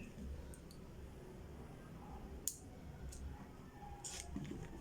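A few faint, scattered clicks and taps from handling a digital clamp multimeter and its test leads, the sharpest about halfway through.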